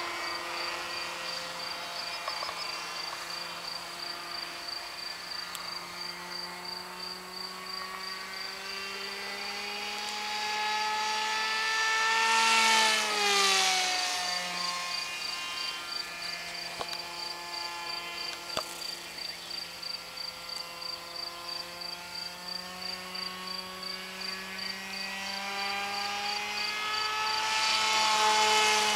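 Radio-controlled model F-16 with a Speed 600 electric motor flying overhead, its motor whine steady in pitch. The whine grows louder and rises in pitch as the model approaches, drops sharply in pitch as it passes about halfway through, and builds again for a second pass near the end.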